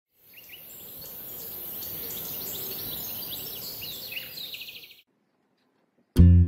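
Birds chirping and twittering over a steady high hiss, fading in over the first second and cutting off about five seconds in. After a moment of silence, music with a whistled melody begins near the end.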